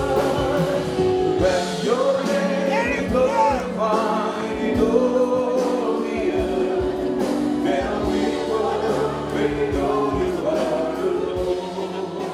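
Gospel music with a choir singing over a band with a steady beat, fading out near the end.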